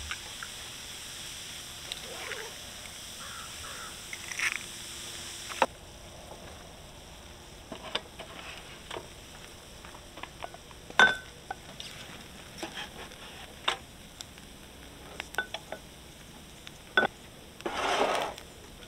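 Scattered light clicks and knocks, with a harsh rasping sound about a second long near the end.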